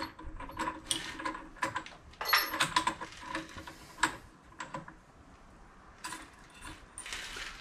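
Light metallic clicks and clinks of an ER32 collet and end mill being handled and fitted at a bench mill's spindle nose, busiest in the first few seconds and quieter after about four seconds.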